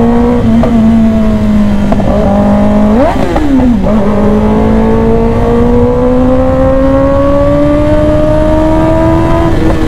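Kawasaki ZX-10R inline-four engine under way with wind rush. There is a brief rev spike and dip about three seconds in, then the engine pulls hard in one gear, its pitch climbing steadily as the bike accelerates, until a break near the end.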